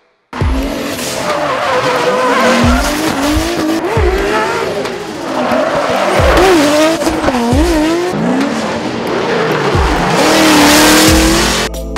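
Loud pro drift cars sliding with their tyres squealing, engines revving hard, the pitch swinging up and down as the throttle is worked. The loudest stretch is a sustained high-revving run near the end.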